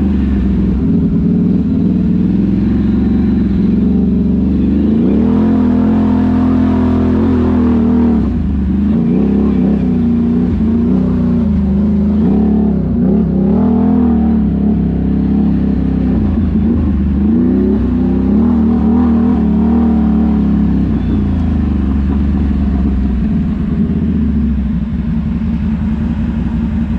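ATV engine running under way on a dirt trail, its revs rising and falling again and again with the throttle.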